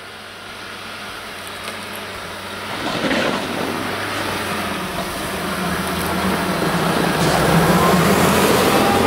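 UAZ Patriot SUV's engine and its tyres on packed snow, growing steadily louder as it drives up the track and comes close.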